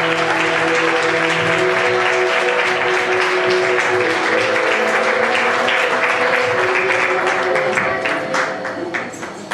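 Audience applauding over the last held notes of the music. The music fades out about two-thirds of the way in, and the clapping then thins to scattered claps near the end.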